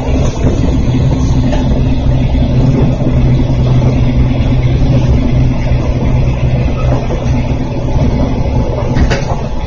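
Interior running noise of an electric train under way: a steady low motor hum over wheel-on-rail rumble, with a single sharp click a little after nine seconds.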